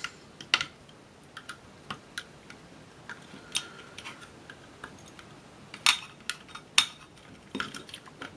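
Irregular small metallic clicks and taps of a screwdriver and small metal parts against a metal instrument housing during disassembly, the sharpest about six and seven seconds in.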